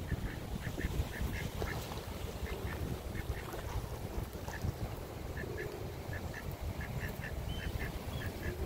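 Domestic ducks quacking in quick runs of short calls as they walk away, over a steady low rumble.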